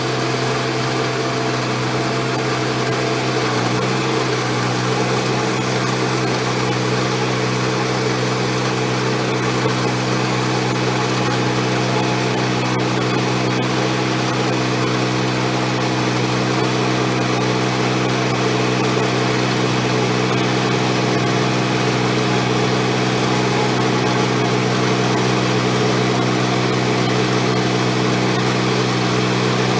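Wood-Mizer LX150 bandsaw sawmill running steadily at a constant pitch while sawing a sweetgum log into slabs.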